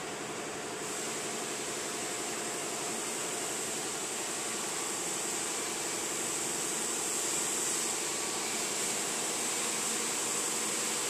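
Steady mechanical hum with a constant hiss, growing slightly louder about a second in.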